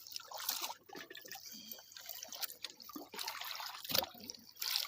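Water splashing and dripping, with irregular small clicks and trickles.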